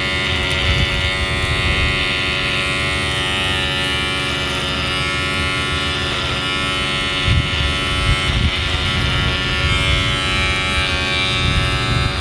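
Electric hair clipper running with a steady buzz, its blade freshly sharpened, cleaned and oiled. There are a few brief bumps in the second half.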